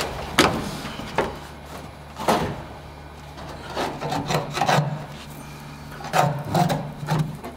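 Irregular knocks and short scrapes of tools and parts being handled while a vehicle cab is stripped, over a steady low hum.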